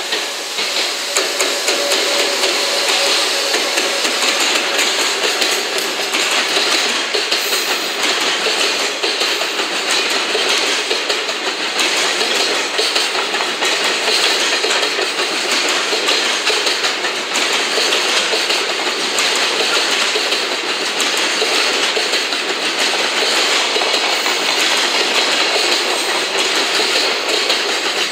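A freight train of container wagons behind an EF210 electric locomotive rolling past close by: a steady loud rumble of steel wheels on rail with rapid clickety-clack over the rail joints. A faint steady tone sounds during the first few seconds.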